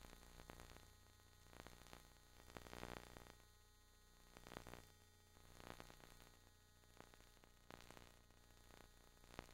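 Near silence: faint static hiss with a low hum, swelling and fading slightly, with no other sound.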